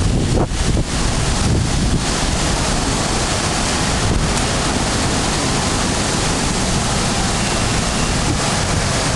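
Strong typhoon wind blowing hard across the microphone: a loud, steady rush of noise, with a few brief dips in the first second.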